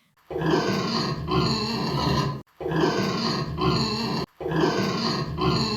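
Pig grunting in rough pulses. The same short grunting clip is heard three times over, with brief gaps between.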